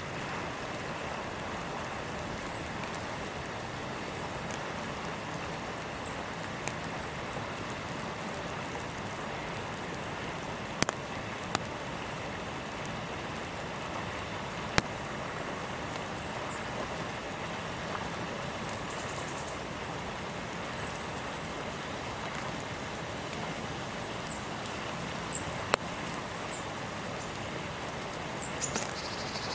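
Steady hiss of rain or sleet falling, with a few scattered sharp drips or ticks. Short, faint, high bird chirps come in over the last third.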